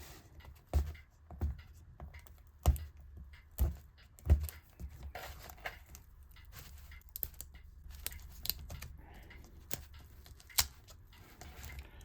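Adhesive tape being peeled off a laptop screen panel, with small rustles and clicks and a few soft knocks in the first half as the panel is handled.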